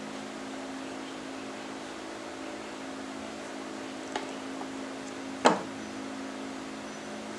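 A small metal square knocks once, sharply, against a turned wooden barrel on the table saw top about five and a half seconds in, after a lighter click about a second earlier. A steady low hum runs underneath.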